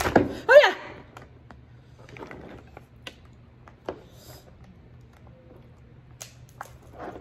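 Cooked Alaskan king crab shell being cracked and pulled apart by hand: scattered sharp clicks and snaps of the spiny shell. A short loud vocal exclamation comes near the start.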